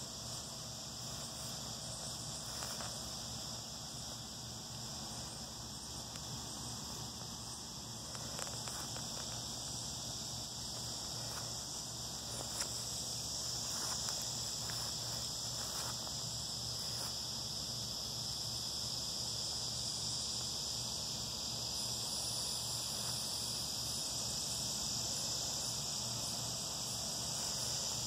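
Steady high-pitched chorus of insects, a continuous drone that grows a little louder about halfway through, with a few faint clicks in between.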